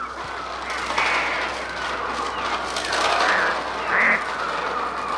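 Electronic bird cries from a Mixtur-Trautonium: a dense flock-like chatter of squawks and shrieks, with louder cries about one, three and four seconds in.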